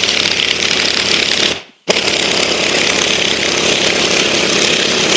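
Power tool running in two bursts, about a second and a half and then about three and a half seconds, with a short stop between, while it pushes an old rubber bushing out of a leaf spring eye.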